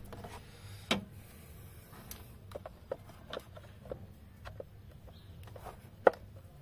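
Small scattered clicks and scrapes of a flat screwdriver working a hose clamp loose, with two sharper knocks, one about a second in and a louder one near the end.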